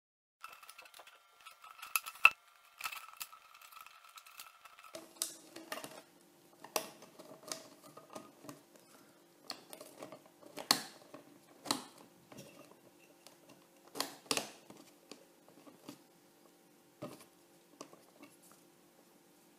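Hands fitting a 3D-printed speaker assembly down into a metal hot chocolate tin: irregular clicks, knocks and scrapes as the parts catch and tap against the tin's rim.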